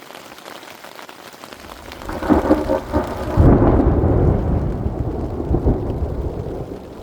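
Thunder over steady rain: a crackling peal builds about two seconds in, is loudest around three and a half seconds, then rumbles and rolls away over the next few seconds.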